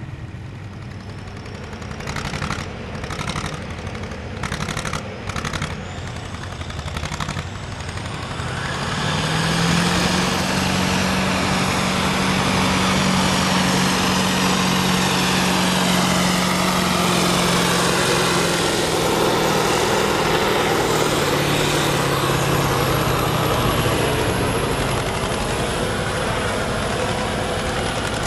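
Kirovets articulated tractor's diesel engine revving in short blips, then opening up to full throttle under load pulling a brake sled. It holds a loud, steady note for about fifteen seconds and eases off near the end.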